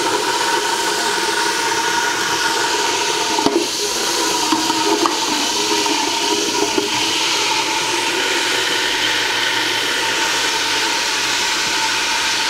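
Steady hissing rush of hot cooking oil heating in a large aluminium pot on the stove, after oil has been poured in from a frying pan. A few light knocks of metal cookware come a few seconds in.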